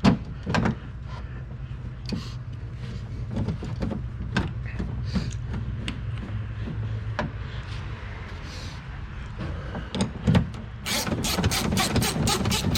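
Scattered knocks and taps of a bolt and tools being worked into the door handle mount inside a car door. Near the end a ratchet wrench starts clicking quickly and evenly, about six or seven clicks a second, as the door handle mounting bolt is run in.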